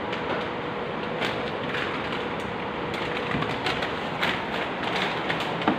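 Steady shop background noise with a faint hum, and scattered light clicks and rustles at intervals.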